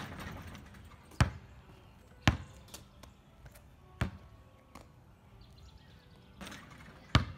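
A basketball bouncing hard on an asphalt driveway: single sharp bounces, spaced a second or more apart. A softer rustle comes as the ball reaches the hoop at the start and again near the end.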